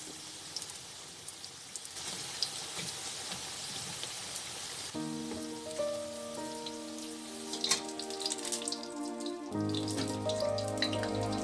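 Jalebi coils deep-frying in hot oil, with a steady crackling sizzle like light rain. Background music comes in about halfway, and there are a few sharp clicks near the end.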